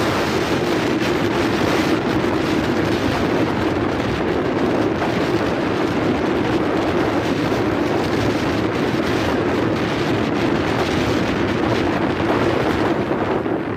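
Steady rush of wind buffeting the microphone, with the low drone of a motorbike's engine and tyres under it, while riding at speed along a road.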